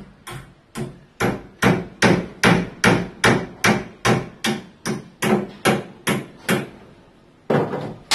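Hammer striking in a steady rhythm, about two and a half blows a second, during carpentry work on a wooden wardrobe; the blows stop briefly and one final strike lands near the end.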